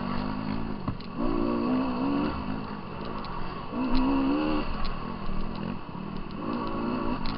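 Off-road dirt bike engine revving in repeated throttle surges, three rising bursts over a steady engine drone.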